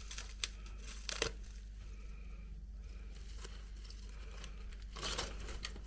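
A few light clicks and brief rustling as an earring is worked out of a small plastic bag, over a faint steady low hum.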